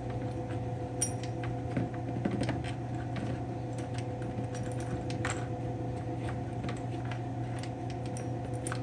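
Light metallic clicks and clinks of a chainsaw chain being handled and worked free of the bar and sprocket, scattered and irregular, over a steady background hum.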